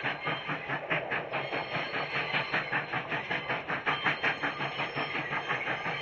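Narrow-gauge steam locomotive working along the line, its exhaust beating in a quick, even rhythm over a hiss of steam.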